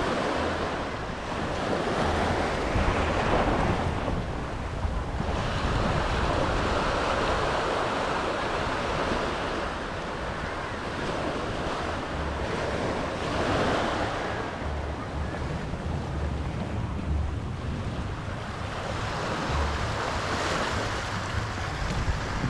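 Small ocean waves breaking and washing up onto a rocky shore, the wash swelling and fading every few seconds, with wind on the microphone.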